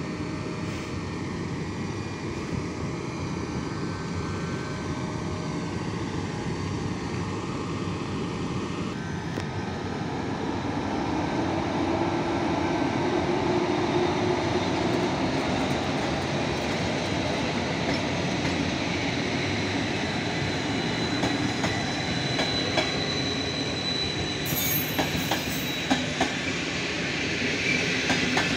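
Passenger train hauled by an EP07 electric locomotive rolling along the track, growing louder about ten seconds in. A thin high wheel squeal sounds in the second half, and wheels click over rail joints near the end.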